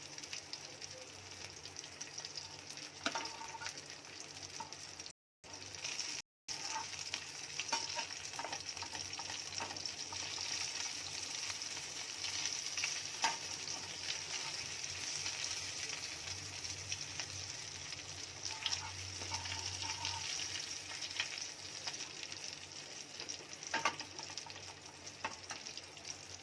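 Pieces of sankara fish shallow-frying in oil in a nonstick pan: a steady sizzle with scattered light taps and clicks. The sound drops out twice for a moment, about five and six seconds in.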